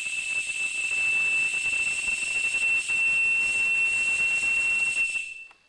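Electronic sound box used to invite spirit communication giving a steady high whistle over loud hissing static, which cuts off abruptly near the end.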